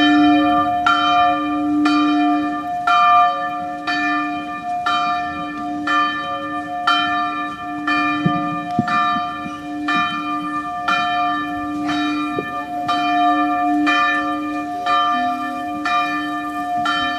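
A church bell tolling about once a second, each stroke ringing on into the next.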